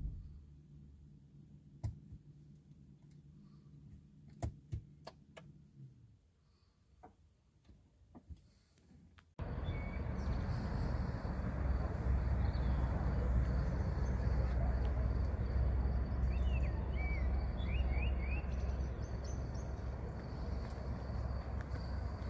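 Peugeot 3008 Hybrid's 1.6-litre petrol engine cutting out as the car switches to electric mode, leaving a faint hum that dies away over several seconds with a few light clicks. About nine seconds in comes a steady low rumble outdoors, with a few bird chirps.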